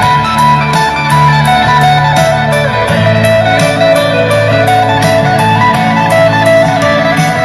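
Music with a steady beat, bass line and melody, played loud through a single SKG wheeled Bluetooth speaker with twin 8-inch drivers as a sound test.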